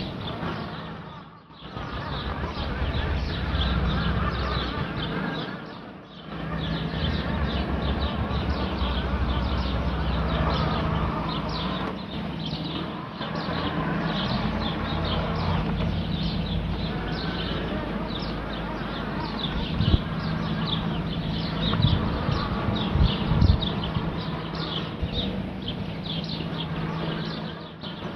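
Eeve Toadi robotic lawn mower's motors humming steadily as it turns on the spot without moving off: the mower is stuck in one place. The hum dips briefly about a second and a half in and again around six seconds. Rapid high chirps run throughout, with a few sharp knocks near the end.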